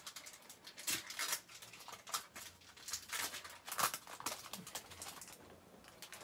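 Foil wrapper of a Topps Opening Day baseball card pack crinkling and tearing as it is pulled open by hand, a run of sharp crackles that stops about five seconds in.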